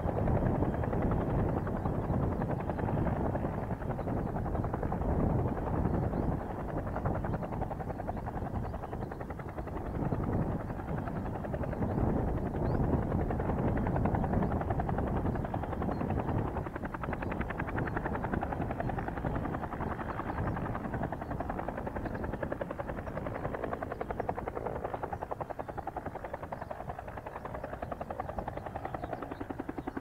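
Fuji-Bell UH-1J helicopter hovering close to the ground: the fast, even beat of its two-blade main rotor over a heavy rumble.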